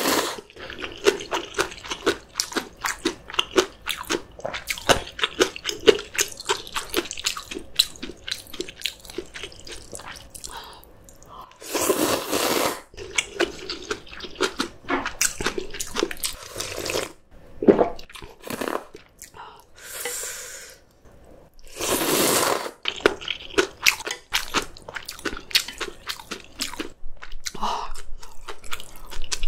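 Close-miked eating: rapid crunchy chewing of kimchi, broken by two long slurps of noodles about twelve seconds in and again about ten seconds later.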